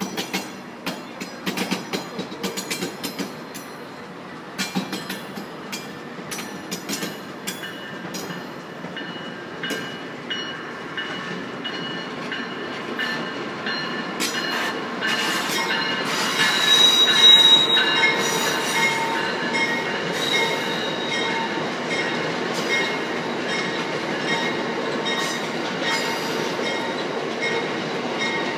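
Passenger train's steel wheels rolling over the track: a run of sharp clicks over rail joints for the first third, then a high, wavering wheel squeal that builds to its loudest about two-thirds in and carries on under a steady rumble.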